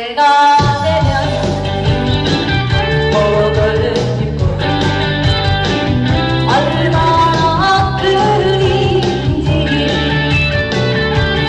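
A woman singing a Korean pop song live into a microphone over a recorded band backing track with guitar, heard through the hall's PA. The accompaniment drops out for a moment at the very start before the song carries on.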